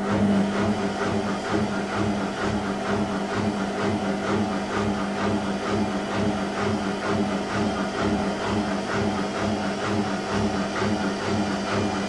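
Whirlpool front-loading washing machine running: a steady mechanical hum with a low pulse about twice a second.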